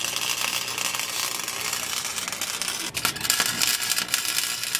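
Wire-feed welder arc welding a steel exhaust pipe: a steady sputtering crackle, with a brief break about three seconds in before it starts again.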